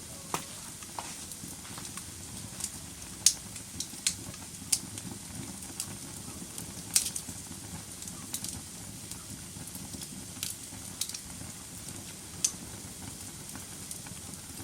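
Wood fire burning in a fireplace: a steady low rustle of flames with irregular sharp crackles and pops, the loudest about three and seven seconds in.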